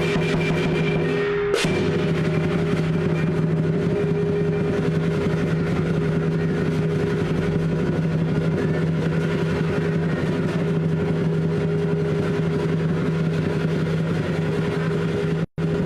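Lion dance percussion playing fast and without a break: drum, clashing cymbals and a ringing gong. Separate drum strokes can be heard in the first second or so before the playing thickens into a continuous roll. It cuts out for a split second near the end.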